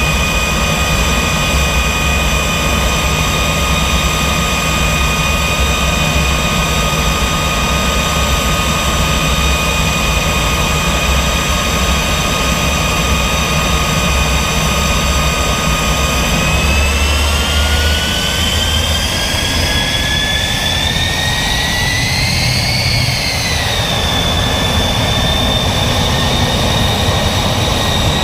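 L-39 jet's turbine engine running loud with a steady whine over a low rumble. About two-thirds of the way through, the whine rises in pitch as the engine spools up, wavers briefly and holds at the higher pitch.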